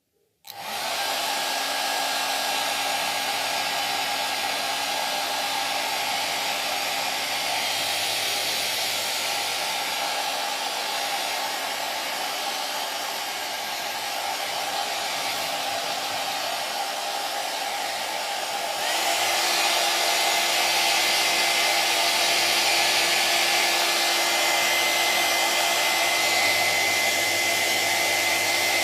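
Electric hair dryer switching on and running with a steady rush of air and a motor whine. About two-thirds of the way in it steps up to a louder, higher-pitched running.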